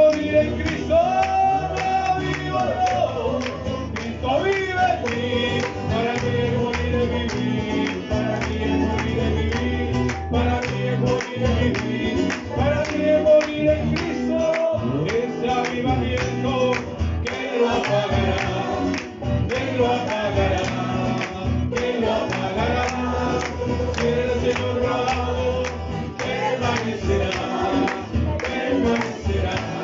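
Congregation singing a Pentecostal chorus in Spanish, led by a male voice and a strummed acoustic guitar, with a steady beat.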